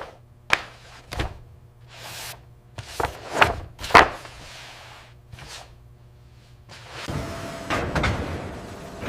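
Irregular knocks and clunks of factory machinery and wood handling, spaced about half a second to a second apart. About seven seconds in, a steady machine rumble takes over.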